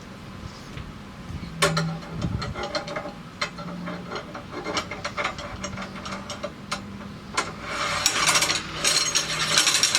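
Metal clinks and scraping from a seeder row marker's point, stop and thumb screw being fitted onto the marker arm. Scattered sharp clicks give way to a denser stretch of scraping and rattling in the last couple of seconds.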